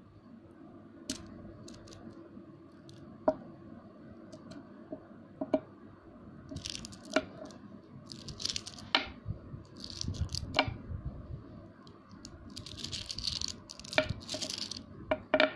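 Small neodymium magnet balls snapping together between fingers: a string of sharp, separate clicks, with several short bursts of rustling in the second half.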